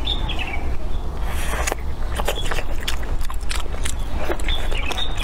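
A person eating close to the microphone: biting and chewing food, with many short sharp clicks and smacks throughout.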